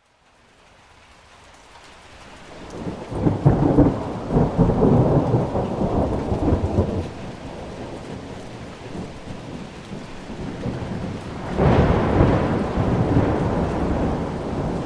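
Thunderstorm: rain fading in from silence, with a long low rumble of thunder from about three seconds in to about seven seconds in, then a second peal starting suddenly about three seconds before the end.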